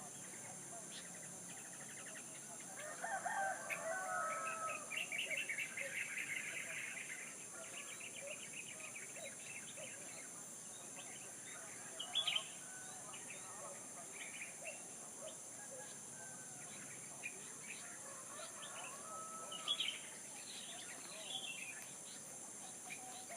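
A rooster crows once, a long call starting about three seconds in, while smaller birds chirp now and then, with short sharp calls around the middle and near the end. A steady high hiss runs underneath.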